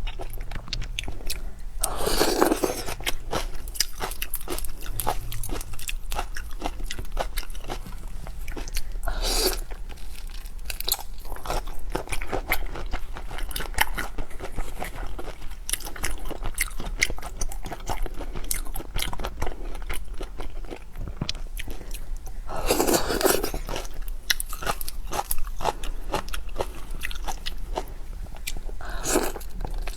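A person eating seafood close to the microphone: steady crunching and chewing, with a few louder bites.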